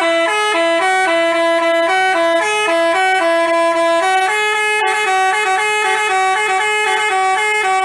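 Basuri telolet bus horn playing a tune: a multi-note horn hopping between two or three pitches in a bouncing rhythm, moving to a slightly higher set of notes about four seconds in.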